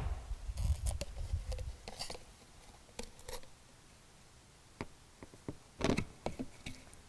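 Plastic mixing cup handled and flexed as a hardened puck of set gel coat comes out of it: scraping and crackling of plastic, then a few light taps and clicks, with a cluster about six seconds in as the cup and the puck are set on the table.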